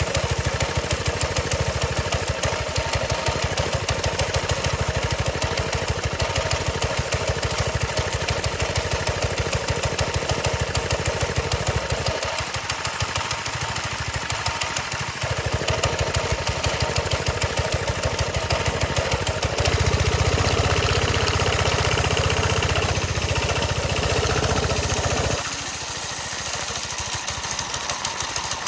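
Engine of an old 1970s chopper motorcycle running steadily, with fast, even firing pulses. About twenty seconds in it grows louder with more low rumble for some five seconds, then drops back.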